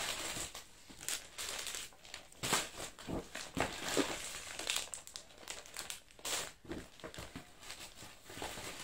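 Crinkling and rustling of gift packaging as hands rummage through the contents of a large red gift box, in short irregular crackles.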